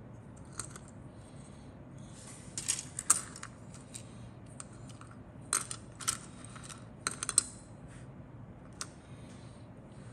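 Loose plastic scale-model kit parts clicking and clattering against each other and the cutting mat as they are handled, in irregular small clusters of sharp clicks.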